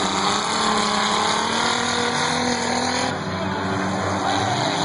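Several figure-8 race cars' engines running hard around the dirt track, their pitches rising and falling over one another as the drivers rev and lift.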